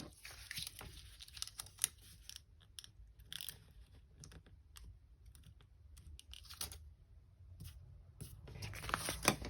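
Faint, irregular small clicks and crinkles of a clear planner sticker being peeled from its sheet and pressed onto a paper planner page.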